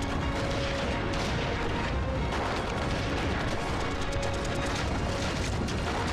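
Dramatic film score with held notes, over a dense, steady low rumble and rapid irregular crackling from the battle sound effects.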